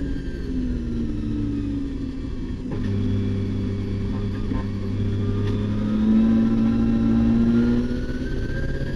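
Nissan RB26 twin-turbo straight-six of an R32 Skyline race car, heard from inside the cabin: the engine note falls as revs drop into a corner, holds lower through the turn, then rises steadily as the car accelerates out.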